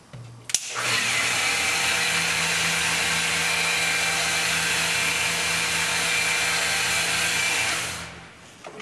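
Electric hand-held polisher running with its pad on a marble wall. It starts with a click about half a second in, runs at a steady speed, then is switched off near the end and winds down.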